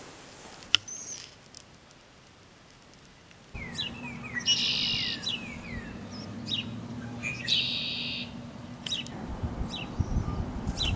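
Near-quiet room tone with a single click about a second in, then outdoor ambience with wild birds singing. The birdsong holds short descending chirps and two brief trills about three seconds apart, and a soft rustling joins near the end.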